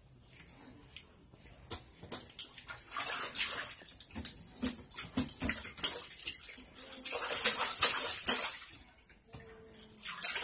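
Water splashing and sloshing in a small inflatable tub as a small dog is washed by hand, in irregular bursts that start about three seconds in and ease off near the end.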